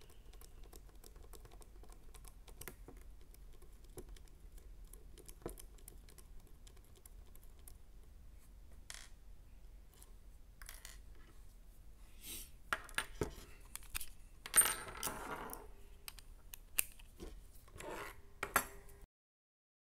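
Small metal parts and hand tools clicking and clinking on a tabletop as a motor and slipper-clutch assembly is taken apart with pliers. Sparse light clicks at first, then more frequent clinks and a louder metallic clatter with a brief ring about three-quarters of the way through. The sound cuts off abruptly near the end.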